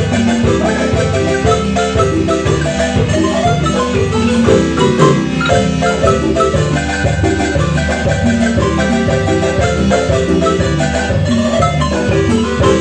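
Marimba music: many quick mallet notes over a steady, repeating bass line.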